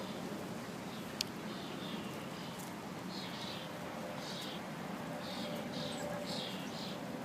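A squirrel crunching an almond at close range: a series of short, crisp crunches over steady background noise, with a single sharp click about a second in.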